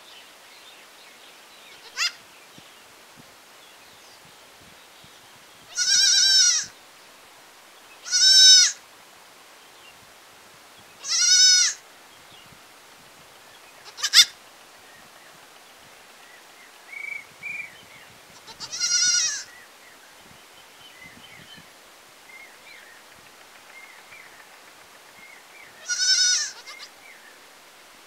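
Goat kid bleating: five short, high, wavering bleats a few seconds apart. Two sharp clicks fall between them.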